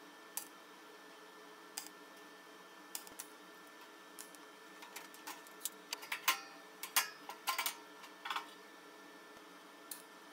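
Sheet metal panels being handled and set down on a steel welding table: scattered light clicks and knocks, turning to a run of louder clatters a little past the middle, over a faint steady hum.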